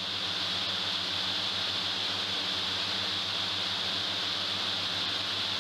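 High-expansion foam generators discharging foam from a hangar ceiling: a steady rushing hiss with a faint low hum underneath.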